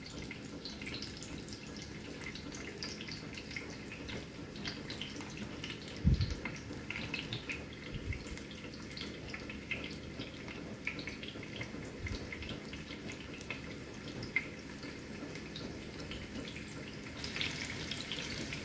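Garlic cloves frying gently in oil in a pan: a light sizzle with scattered small pops and crackles. A dull thump about six seconds in, and the sizzle grows louder near the end.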